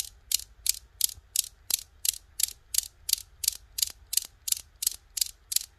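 Metal balls of a seven-ball Newton's cradle clacking steadily as three balls swing out and strike the rest: a sharp click about three times a second.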